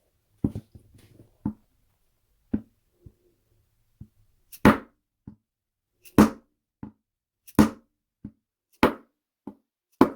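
Repeated sharp taps, lighter at first, then five louder strikes about one every second and a half, each with a short ring: the new spark plug tube seal being tapped into place.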